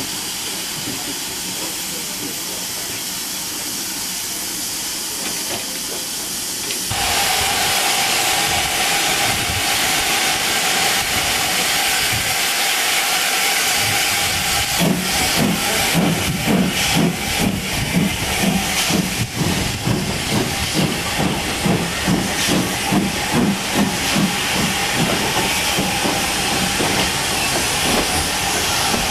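Steam locomotive hissing steam, growing clearly louder about a quarter of the way in. From about halfway, a steady beat of exhaust chuffs, roughly one and a half to two a second, joins the hiss as the train moves off.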